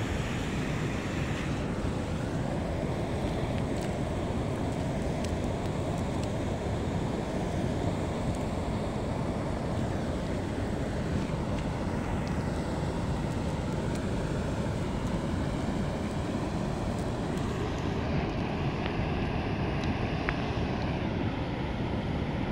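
Steady rushing noise of a river in flood, with wind buffeting the microphone.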